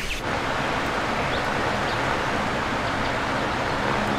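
A steady rushing noise of moving air starts abruptly just after the beginning and holds evenly, with a few faint bird chirps over it.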